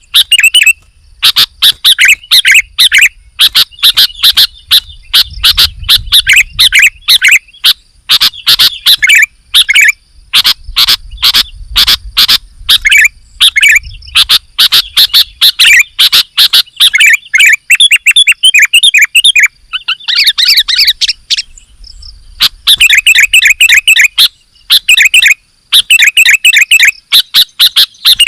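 Sooty-headed bulbul (kutilang) singing loudly in rapid runs of chirping phrases with brief pauses, one longer pause about three quarters of the way through. A faint steady high tone runs underneath.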